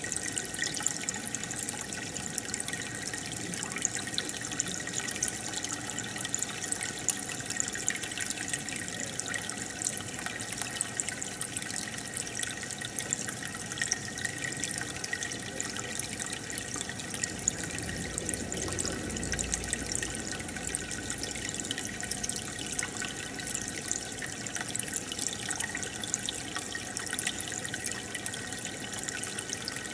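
Aquarium water bubbling and trickling from the tank's aeration: a steady fizz of many small bubble pops and splashes.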